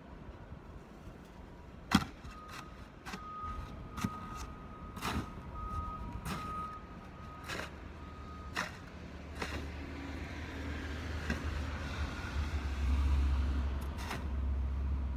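Snow shovel striking and scraping the pavement in six or so sharp knocks over the first half, with a thin steady high tone alongside. Then a passing vehicle's low engine rumble swells, is loudest about three-quarters of the way through, and eases off.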